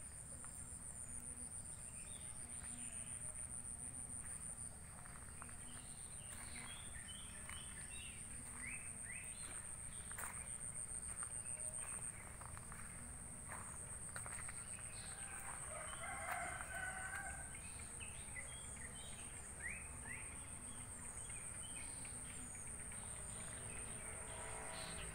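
Village outdoor ambience: a steady high-pitched insect drone runs throughout, with scattered short bird chirps. A rooster crows once about two-thirds of the way through.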